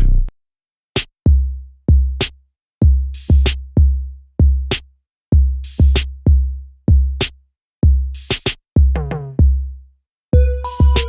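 Background music: an electronic drum-machine beat of heavy bass-drum thumps and claps, with a couple of dead stops, and melodic notes coming in near the end.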